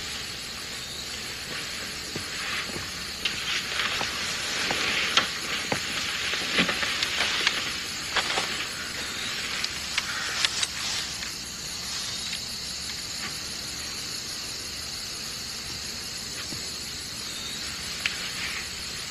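A steady hiss, with scattered light clicks and rustles gathering between about three and eleven seconds in.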